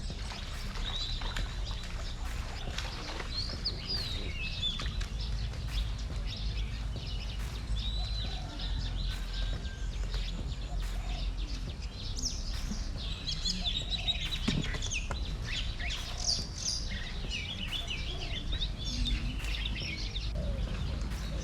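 Small birds chirping and twittering in short high calls, busier in the second half, over a steady low rumble.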